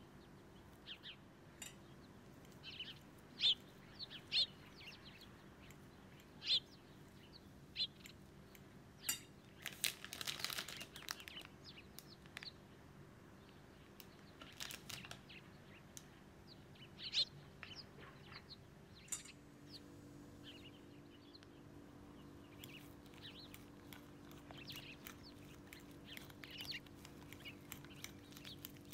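Metal fork clicking and scraping against a ceramic bowl while mashing boiled potatoes: scattered light clicks and squeaks, with a longer scrape about ten seconds in, over a faint steady hum.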